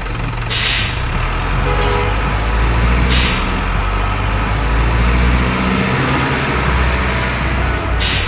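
Simulated diesel truck sound for a miniature RC truck: a steady low engine rumble, with three short air-brake hisses, about half a second in, about three seconds in and near the end.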